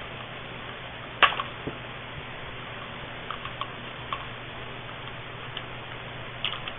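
Scattered light clicks and knocks over a steady hiss and a low hum. The loudest click comes about a second in, with a small cluster near the end.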